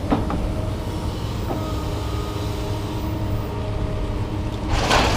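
A vehicle engine idling steadily, a low rumble with a steady hum. A louder rushing noise starts near the end.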